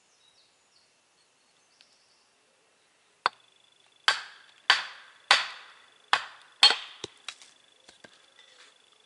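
Blade chopping into an upright wooden block to split off waste wood. A sharp knock comes about three seconds in, then five heavy blows about half a second apart, then a few lighter taps.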